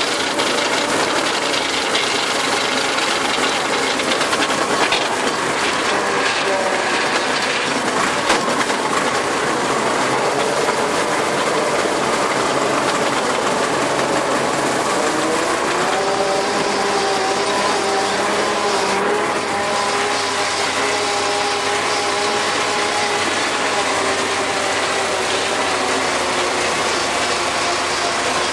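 Tractor engine running steadily under load while a rear-mounted rotary tiller, driven by the power take-off, churns grass into the soil. The engine's pitch rises a little about halfway through, then holds.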